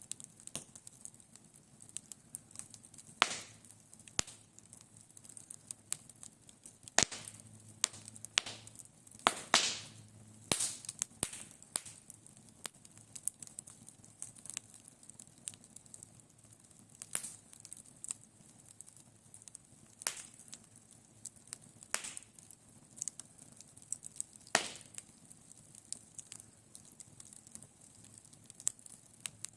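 Wood fire crackling, with irregular sharp pops and snaps over a faint hiss; a cluster of louder pops comes about a third of the way in.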